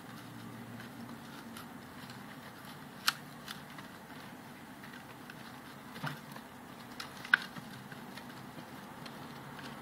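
Syrian hamsters gnawing a raw carrot: small crunching clicks and rustling in wood-shaving bedding, with three louder sharp clicks scattered through.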